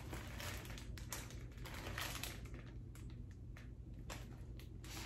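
Faint rustling and crinkling of wrapping in short, irregular bursts as a shipped houseplant is unwrapped.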